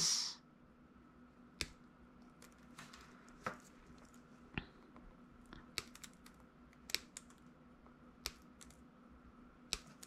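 Flush cutters snipping off the excess ends of Cat6 wire conductors, one after another. Each cut is a short, sharp click, coming every second or so.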